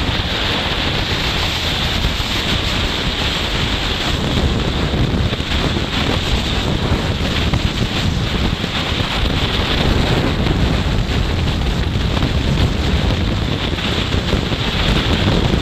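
Steady rush of wind over the microphone of a motorcycle riding at about 75 km/h, with the bike's road noise blended in. It swells slightly about two-thirds of the way through.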